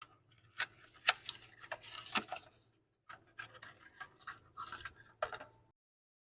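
Irregular sharp clicks and knocks over a faint low hum, with a short pause partway through, ending abruptly.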